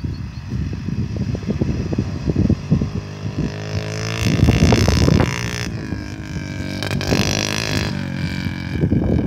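Small dirt bike engine revving, its pitch rising about three and a half seconds in, then opening up and easing off twice. An irregular low rumble of wind on the microphone runs underneath.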